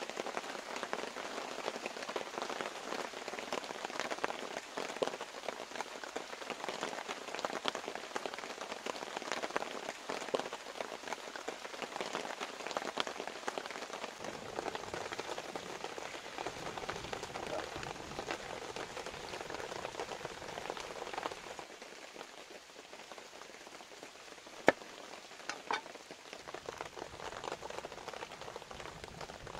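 Steady rain pattering on leaves and ground, a dense hiss of small drops. It eases for a few seconds about three-quarters of the way through, where a couple of sharper clicks stand out.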